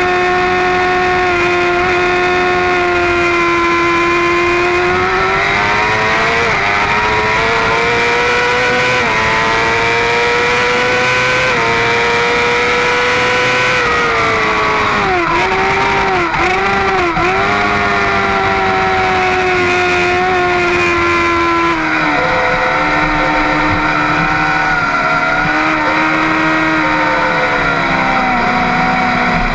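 Middleweight superbike engine running at high revs on track, its pitch holding, then climbing steadily under throttle. About halfway it dips and recovers three times in quick succession, then it settles lower and drops to a deeper note about two-thirds of the way through.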